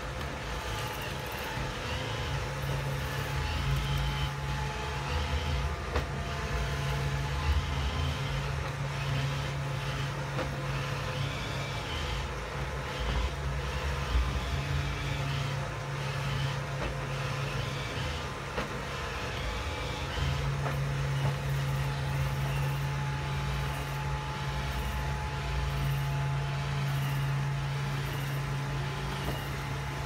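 iRobot Roomba 620 robot vacuum running while it cleans up rolled oats: a steady low motor hum that weakens for a few seconds just past the middle.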